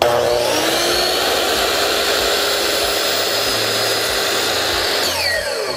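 Hitachi 10-inch miter saw's motor switched on, spinning up within about half a second to a loud, steady high whine with blade rush. Near the end its pitch drops steeply.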